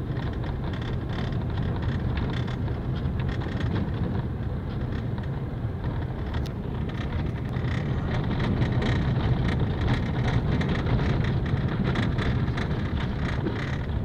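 Car driving on a dirt road, heard from inside the cabin: a steady low engine and road hum, with tyres on loose gravel giving many small ticks and a little louder in the second half.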